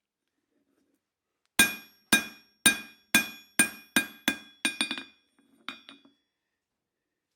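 Blacksmith's hammer striking steel on an anvil. There are about ten ringing blows, roughly two a second, starting about a second and a half in; they come quicker and lighter toward the end, then stop.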